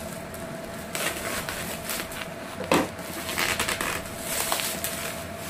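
Plastic bubble wrap crinkling and rustling as it is cut with scissors and pulled open by hand, in irregular bursts, with one sharp click a little before the middle.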